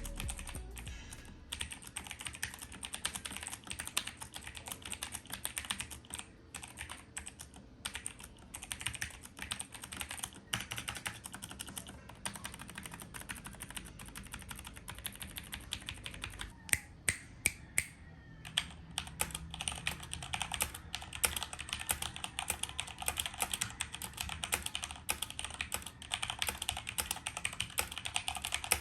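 Typing on a Keychron Q1 75% mechanical keyboard: a steady run of fast key clicks, with a few louder clacks about two-thirds of the way through.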